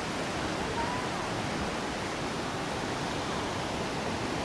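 Fast-flowing river water below, a steady, even rushing with no break.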